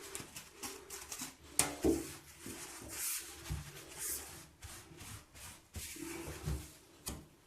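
Gloved hands rubbing and scraping hair off a barbed plastic drain-cleaning strip, an irregular rubbing with scattered knocks, two louder ones near two seconds in.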